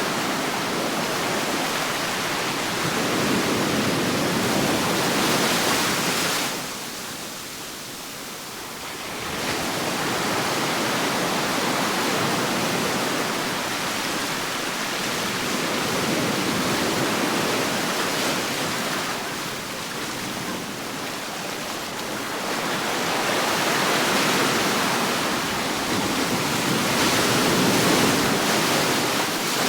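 Medium ocean waves washing onto a shore: a continuous surf hiss that swells and recedes, dropping to a quieter ebb about six seconds in before the next wave builds.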